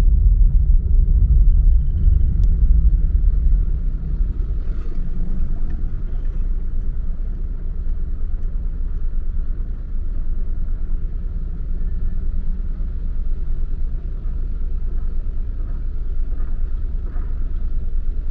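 Car driving on city streets: steady low road and engine rumble, louder for the first four seconds, then a little quieter.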